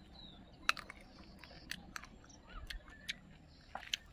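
Chewing a raw green Solanum fruit close to the microphone, with a few sharp crunchy clicks roughly a second apart.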